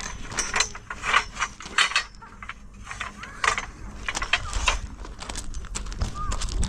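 A run of irregular clicks, knocks and scrapes, like materials or tools being handled during work.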